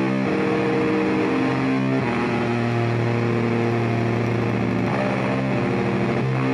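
Live rock band: electric guitar and a bass through an Ampeg SVT amp holding long, sustained chords, changing chord a few times.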